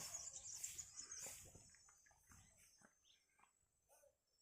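Quiet outdoor ambience. There are faint footsteps over about the first two seconds and a steady high insect buzz that fades. A few faint bird chirps follow in the second half.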